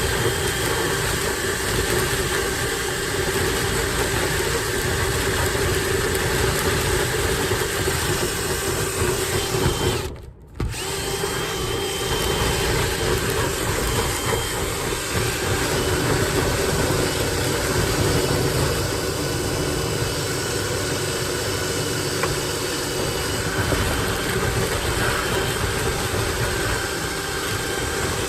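A power tool's motor running steadily, with a short break about ten seconds in.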